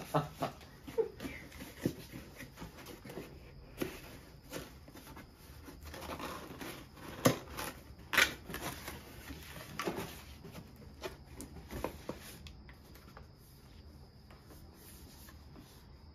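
Cardboard packaging being handled and unpacked: scraping, rustling and tapping of cardboard box inserts, with two sharper knocks about seven and eight seconds in. It grows quieter over the last few seconds.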